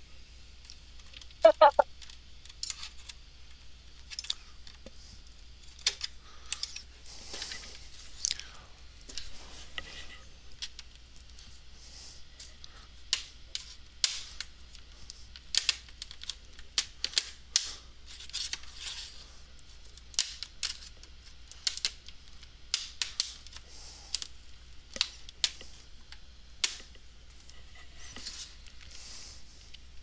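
Irregular sharp clicks and taps, one or two a second, with a short, loud pitched blip about a second and a half in.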